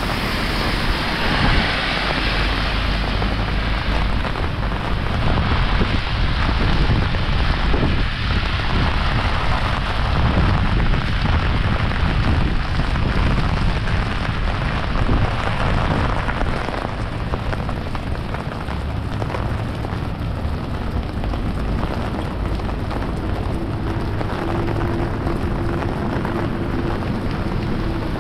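Heavy rain pouring in a strong wind: a dense, steady hiss over a low rumble of wind on the microphone.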